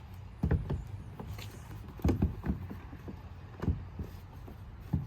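Replacement door mirror knocking and bumping against the car door as it is pushed into place and lined up on its bolts: four short groups of dull knocks, a few clustered together about two seconds in.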